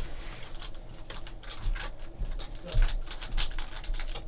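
Crinkling and rustling as a foil trading-card pack is handled and torn open, with cards shuffled between the hands, plus a soft low bump near the middle.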